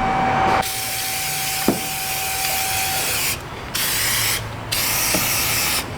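Aerosol battery-terminal anti-corrosion spray hissing in three bursts, a long one and then two shorter ones, coating the new positive battery cable connection against corrosion.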